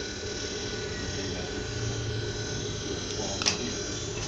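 Industrial overdeck (coverstitch) sewing machine running with a steady motor hum, and one sharp click about three and a half seconds in.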